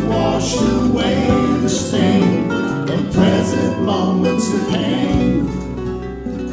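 Music: a song accompanied by acoustic guitar.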